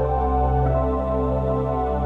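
Background music: a slow ambient new-age piece of sustained synthesizer chords.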